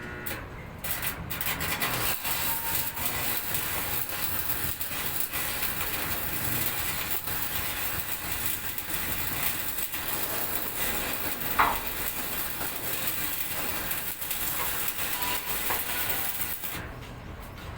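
Electric arc welding: the arc's steady crackle and sizzle, starting about a second in and cutting off shortly before the end, with one brief sharp higher-pitched sound about two-thirds of the way through.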